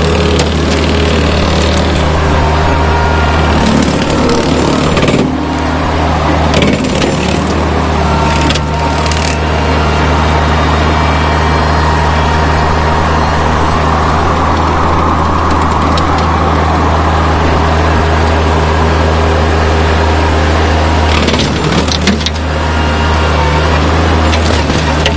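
Rural King RK24 subcompact tractor's engine running steadily under load while driving a rotary cutter, with a few brief clatters of brush being cut.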